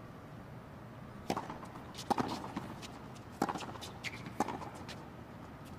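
Tennis rally on a hard court: a series of sharp pops as racquets strike the ball and the ball bounces, starting about a second in and coming roughly every half second to a second, over a steady low arena background.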